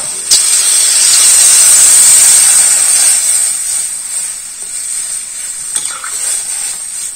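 Water poured into a hot karahi of taro frying in oil and spices: a sudden loud hiss and sizzle of steam. It starts about a third of a second in, is loudest around two seconds, and eases to a quieter sizzle after about four seconds.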